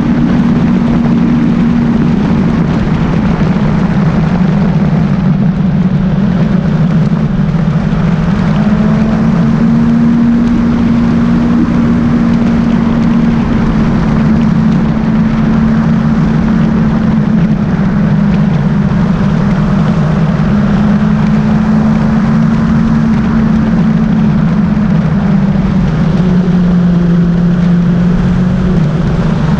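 Motorcycle engine running at a steady cruise, heard through heavy wind and road noise on the bike-mounted camera. The engine note drops a few seconds before the end, then picks up again.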